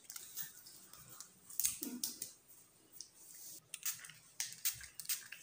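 Faint scattered handling sounds, a few short clicks and rustles, as water from a plastic bottle is put on a paper temporary-tattoo transfer and the transfer is pressed onto a wrist.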